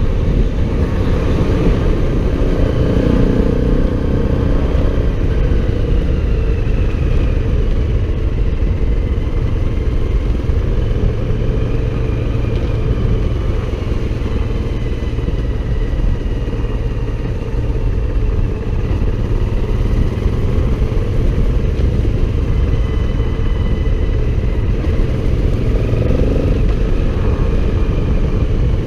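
Motorcycle running steadily on the move under a heavy low rumble. Its note rises and falls gently now and then.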